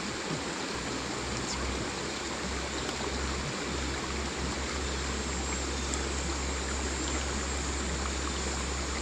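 Creek water running steadily, an even rushing hiss, with a low rumble coming in underneath about a second in.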